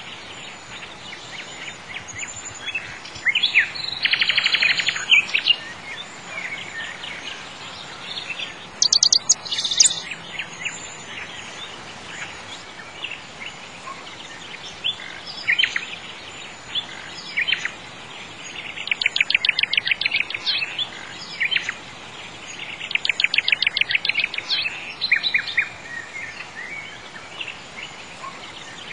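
Birds chirping and singing over a steady faint background hiss, with repeated rapid trills among the scattered chirps.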